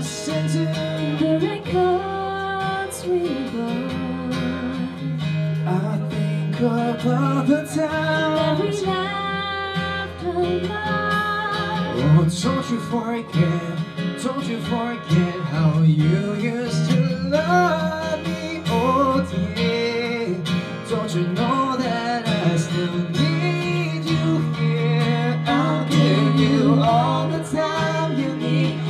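Live acoustic pop ballad: a man singing over acoustic guitar and digital piano, with a woman's voice taking the melody near the end.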